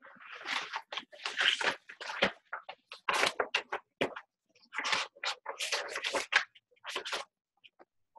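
Rustling and scraping of things being handled at a desk close to the microphone, in short irregular bursts with a few sharp clicks.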